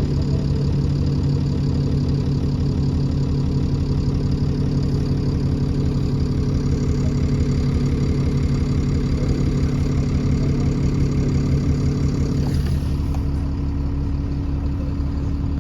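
Alexander Dennis Enviro400 Trident double-decker bus engine idling steadily, its note shifting slightly about three-quarters of the way through.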